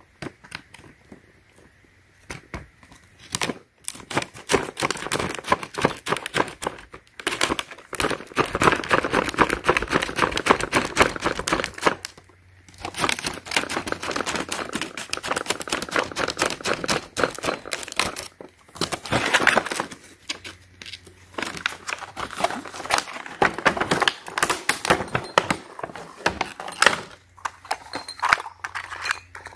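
Shears snipping through a stiff clear plastic clamshell package, the plastic crackling and crinkling as it is cut and pulled apart. The cutting starts a few seconds in and goes on in an irregular run of sharp clicks and crinkles.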